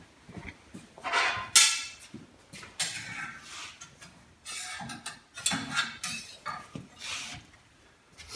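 Metal tools and a small steel plate clanking and clattering on a workbench as they are picked up and set down, a string of irregular knocks, the sharpest about one and a half seconds in.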